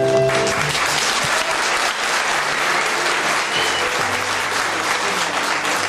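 A roomful of people clapping, building up about half a second in and holding steady, with soft music underneath.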